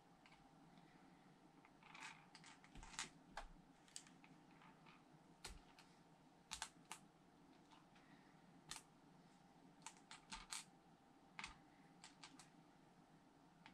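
Small plastic Lego pieces clicking and tapping as they are handled on a table, in irregular sharp clicks that start about two seconds in, over a faint room hiss.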